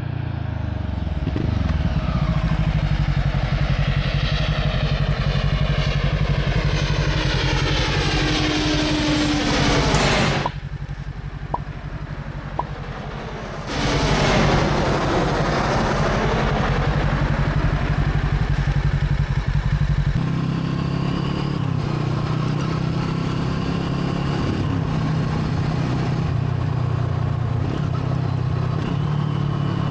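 Brixton Crossfire 500 parallel-twin motorcycle engine running at steady revs as the bike drives past, its sound swelling and fading with the pass. The sound drops away abruptly for a few seconds about a third of the way through, then returns.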